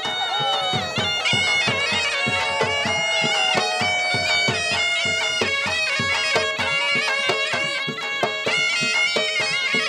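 A shehnai plays a loud, nasal folk melody that steps and slides in pitch, over fast, steady dhol drumming at about four strokes a second.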